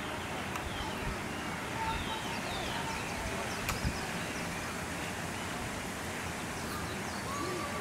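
Steady outdoor background noise with faint high chirps, and a single sharp click about halfway through.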